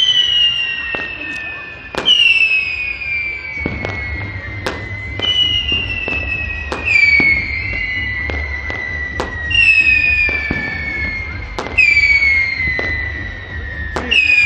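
Whistling fireworks going off one after another: shrill whistles that each slide down in pitch over a couple of seconds, a new one starting about every two seconds and overlapping the last, with sharp cracks of firecrackers between them.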